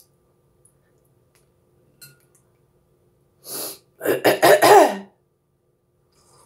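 A woman takes a quick breath, then coughs and clears her throat in a short, loud run of about five hacks falling in pitch, a little over halfway through.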